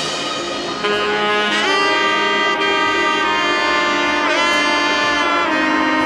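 Background music: a melody of held notes that slide up and down between pitches, without drums.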